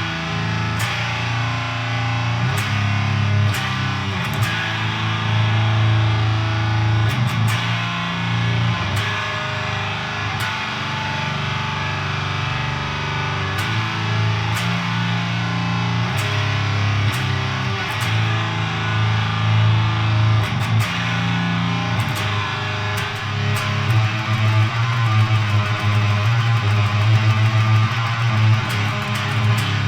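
Distorted electric guitar riffing through a Siren Pedals Eligos HM-2-style heavy metal distortion pedal into an all-tube amp, giving a chainsaw-type death metal tone. Low sustained chords change every second or so, picking up a little in level near the end.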